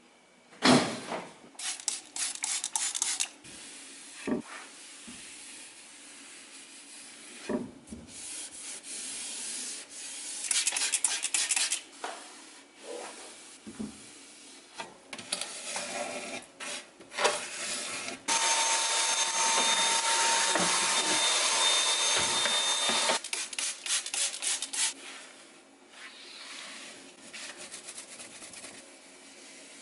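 Cloth wiping a cupboard shelf: bursts of rubbing and scrubbing with scattered knocks. Partway through, a steady hiss with a faint whine runs for about five seconds and is the loudest sound.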